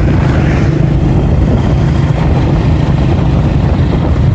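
Motorcycle engine running steadily at road speed, heard from on the bike, with wind rushing over the microphone.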